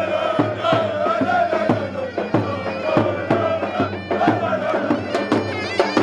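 Zurna and davul folk music: a shrill reed pipe plays a wavering melody over regular bass-drum beats.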